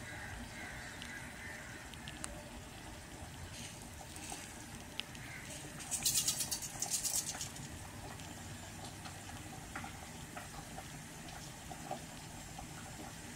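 Mustard seeds tipped into hot oil in a steel kadai: a dense rush of sizzling and pattering about six seconds in, lasting a second and a half, then scattered ticks and pops as the seeds crackle in the oil.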